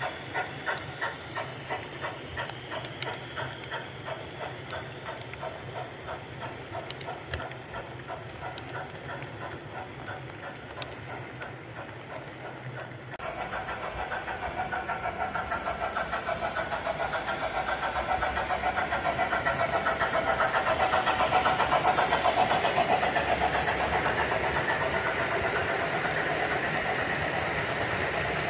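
Sound from an MTH Premier O-scale LMS Duchess class model steam locomotive as it runs: its onboard sound system puffs out steam chuffs, with the rolling noise of the model train on the track. The chuffs beat about twice a second and slowly fade at first. About 13 seconds in they turn suddenly louder and much faster, growing toward the end.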